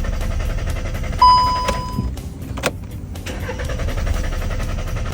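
A car's starter cranking the engine, which does not catch, with a short lull partway through. About a second in, a single electronic beep of about a second sounds. The owner traces the no-start to a sludge-clogged camshaft solenoid valve.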